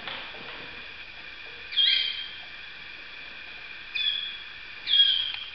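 Waterslager (Malinois) song canaries singing: a continuous song of long held notes that swells loud three times, about two seconds in, about four seconds in and near the end, each swell opening with a quick upward slide.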